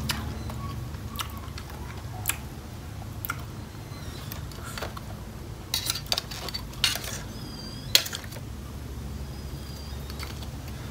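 A metal spoon clinking and scraping against a metal bowl of crab papaya salad, with a handful of sharp clicks, the loudest about eight seconds in, and a few short high squeaks, over a steady low rumble.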